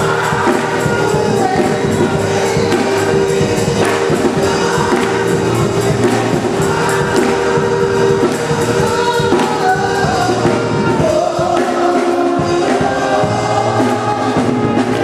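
Gospel music sung by a choir of many voices with a steady beat.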